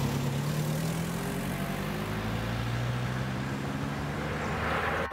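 Road vehicle engines running at low speed, a steady hum, with tyre and road noise swelling near the end as a vehicle passes close.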